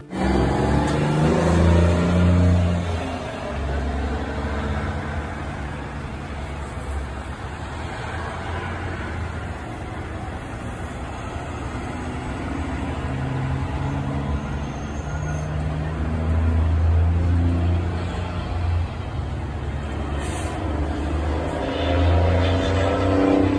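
Road traffic with heavy diesel truck engines running close by, their low hum rising and falling as vehicles pass. Near the end an engine's pitch rises as a vehicle accelerates.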